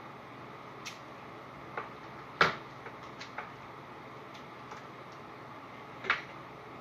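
Scattered light clicks and taps, about ten in all, from a strand of silver beads being handled against plastic craft trays. The loudest comes about two and a half seconds in and another near the end, over a steady background hiss.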